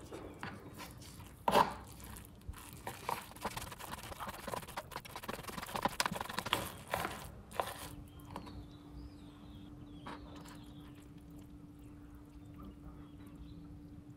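Chopsticks stirring instant noodles with seasoning powder and sauce in a paper cup: irregular clicks and scrapes, with a sharp knock about a second and a half in. The stirring stops a little past halfway, and a faint steady low hum remains.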